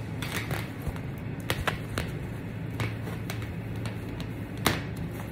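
Short sharp clicks and crinkles of the plastic film of a clear bubble balloon as hands work at its neck, the loudest near the end, over a low steady hum.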